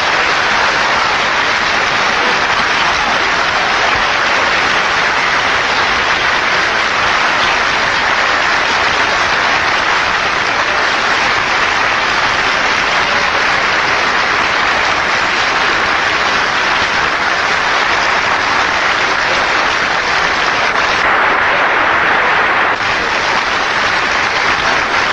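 Long, loud applause from a large assembly of delegates, a dense, even clapping that does not let up.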